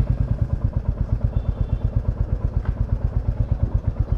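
Royal Enfield Classic 350's single-cylinder four-stroke engine idling with its steady, even thump, about nine beats a second, freshly started.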